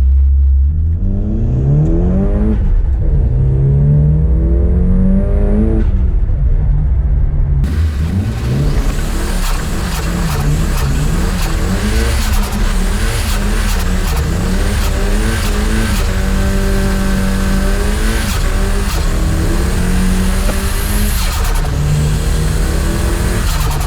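Nissan Silvia S15's turbocharged SR20DET engine accelerating hard, its pitch climbing and dropping again and again through the gears. With no blow-off valve fitted, the turbo's compressor surge flutters ('dose') on each lift-off.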